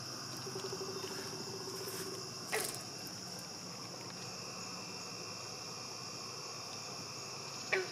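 Steady, high-pitched chorus of insects in summer vegetation. A low, rapid trill runs through the first couple of seconds, and a single sharp tap comes about two and a half seconds in.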